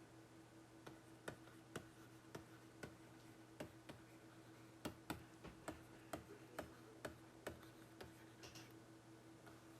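Faint, irregularly spaced clicks, about fourteen of them, over a low steady hum. The clicks stop about two seconds before the end.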